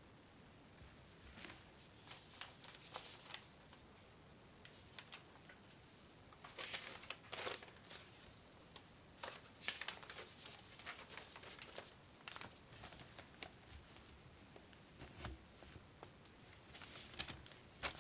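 Sheets of paper rustling and crinkling as they are handled, in scattered short scraps of noise, loudest about seven seconds in, around ten seconds, and near the end.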